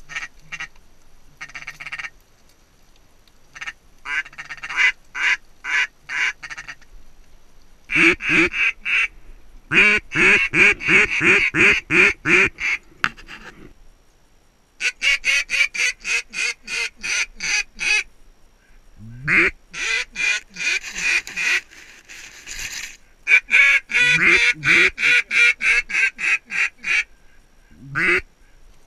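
Canada goose calls blown by hunters: several runs of rapid, evenly spaced clucks and honks, many notes breaking sharply from low to high, with short pauses between the runs.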